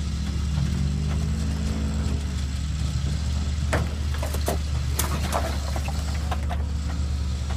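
Rock-crawler buggy's engine running steadily at low speed, its pitch rising and falling gently with light throttle as the vehicle sits nose-up on boulders. A few sharp clicks or knocks come in the middle.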